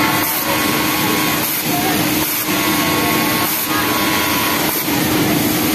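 Industrial overlock sewing machines running on a garment-factory floor, a steady mechanical whirring din with a faint steady hum, and people talking in the background.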